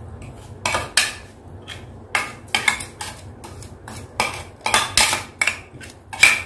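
Metal spoon clinking and scraping against a plate and a glazed ceramic mortar as soaked poppy seeds are scraped into the mortar: a run of sharp, irregular clicks and scrapes.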